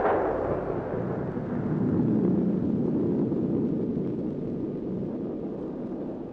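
Explosive rock blast: a sudden bang, then a long low rumble of the blast and falling rock that swells over the first couple of seconds and slowly dies away.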